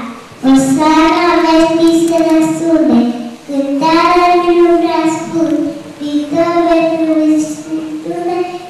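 A young girl singing solo into a handheld microphone, in sung phrases with long held notes and short breaks between them, with no accompaniment heard.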